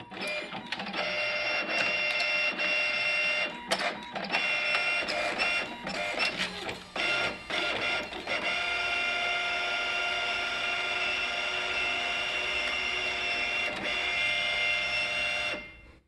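Epson Stylus Color 640 inkjet printer running through a page: its motors whine in stops and starts, with clicks and clunks, for the first eight seconds as the print-head carriage shifts, then whine steadily for about seven seconds as a sheet is fed out, stopping abruptly near the end.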